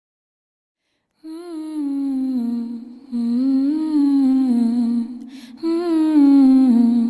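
A single voice humming a slow melody in three phrases, starting after about a second of silence, with a short hiss between the second and third phrases.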